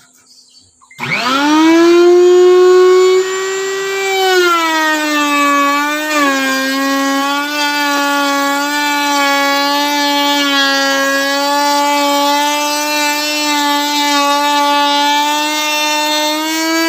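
Table-mounted electric router starting up about a second in, its whine climbing to full speed within a second. It then drops slightly in pitch and holds steady as the bit cuts a wooden strip into cornice molding, and rises a little again near the end.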